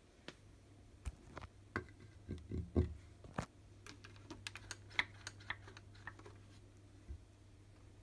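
Irregular clicks and light knocks of a hand handling a front-loading washing machine's plastic door and its frame. There is a short cluster of duller thumps about two and a half seconds in and a quick run of small ticks after the middle, over a low steady hum.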